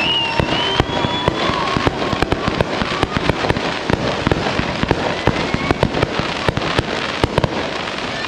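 Heavy rain pelting the camera, a dense, irregular patter of sharp ticks over a steady hiss. A faint whistle-like tone rises in the first second or two.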